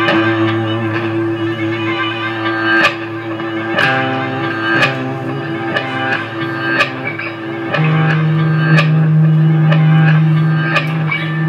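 Electric guitar playing slow strummed chords, each struck and left to ring for one to several seconds, with a lower chord held from about eight seconds in.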